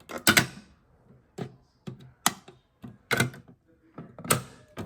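A series of sharp, irregularly spaced clicks and knocks, like something being handled or buttons being pressed: about ten in all, the loudest a double knock at the start and single ones spread through the rest.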